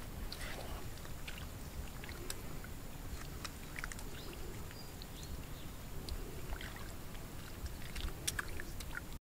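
Hands sloshing and splashing through shallow muddy water in a mud pit, with soft, irregular small splashes.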